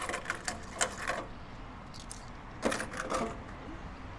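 Coins clinking in the tray of a coin-changer machine as they are handled, in two runs of clinks: one over the first second and another about two and a half seconds in.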